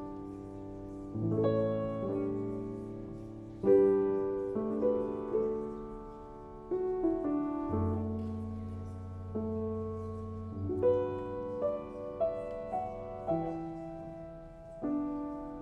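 Slow solo piano music: chords struck every second or two, each left to ring and fade.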